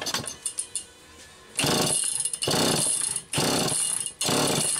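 Homelite Super EZ two-stroke chainsaw engine being cranked over by hand, four pulls in quick succession, each a rasping burst about a second long. It turns over without catching and running: the carburetor is flooding it with too much fuel.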